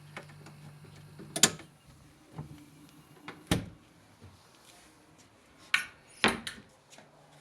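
Built-in fridge and cabinet doors being handled: a series of sharp knocks and clunks, four of them loud and spaced a second or two apart. A low steady hum from the newly switched-on refrigerator stops about a second and a half in.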